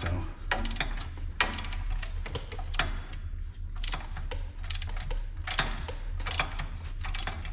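Hand ratchet clicking in short repeated strokes as it loosens an 18 mm upper ball joint nut on a truck's steering knuckle, the stud holding rather than spinning.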